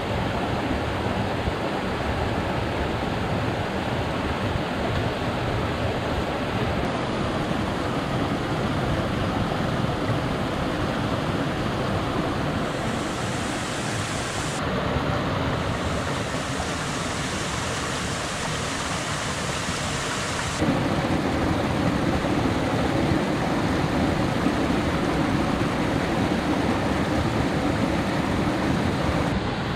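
Steady rushing of a stream's flowing water, a little louder in the last third.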